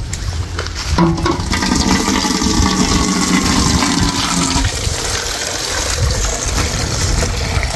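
Water gushing from an outdoor tap through a cut plastic bottle into a large metal pot, filling it; the flow gets louder about a second in.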